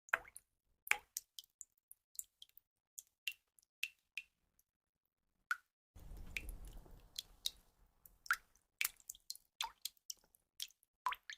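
Water drops falling and plinking in an irregular patter, several drips a second, some with a short ringing pitch. A low, dull noise swells in about six seconds in and fades out over about two seconds.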